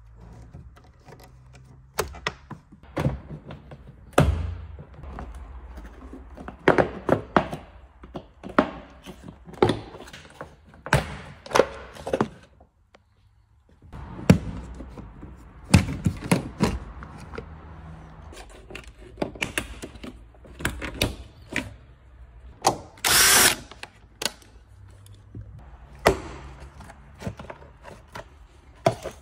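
Interior strip-down of a Volkswagen Caddy: a long run of sharp clicks, knocks and plastic clacks as hand tools loosen a seat-belt anchor bolt and pry plastic trim panels off their clips, with a brief harsh rasp about two-thirds of the way through.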